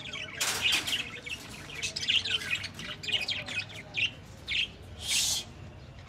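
Pet parrots in an aviary chirping and tweeting in many short, quick calls, with one longer, harsher burst about five seconds in.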